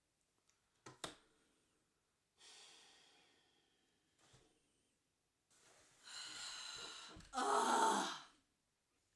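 A woman sighing: a soft breath out a couple of seconds in, then a long breath in and a loud, voiced sigh out near the end. A sharp click about a second in.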